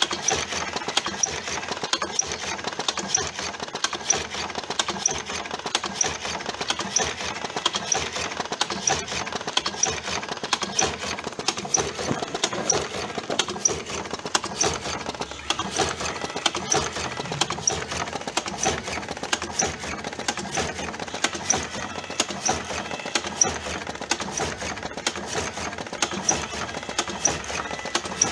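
Electric cigarette tube filling machine running steadily, a continuous mechanical clatter with a regular repeating tick, about two cycles a second, as it fills tubes with tobacco.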